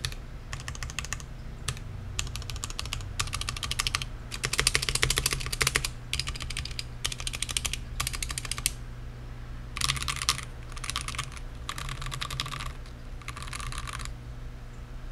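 Womier K87 tenkeyless mechanical keyboard with XDA-profile keycaps being typed on in short bursts of rapid keystrokes, each about a second long with brief pauses between. The burst around four to six seconds in is the longest and loudest. A steady low hum runs underneath.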